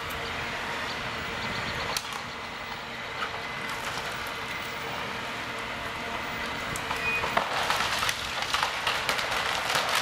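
John Deere 1470E forestry harvester's diesel engine and hydraulics running steadily. From about seven and a half seconds in, a dense run of cracking and snapping wood and branches as the harvester head grips a tree at its base.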